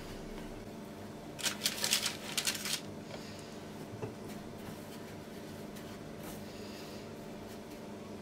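Toasted sesame seeds rustling and scraping on a plate as dough pieces are rolled and pressed in them by hand, loudest in a cluster of rustles about a second and a half in, then a few fainter ones. A faint steady hum runs underneath.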